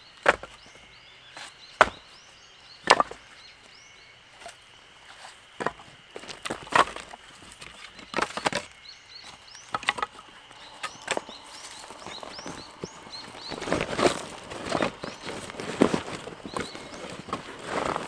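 Firewood being split: sharp wooden strikes about once a second at first, coming closer together and rougher near the end. Small birds chirp in the background.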